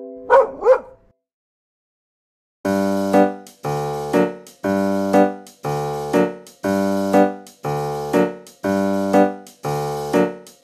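Two quick dog barks right at the start, then a short silence, then keyboard background music with a chord struck about once a second.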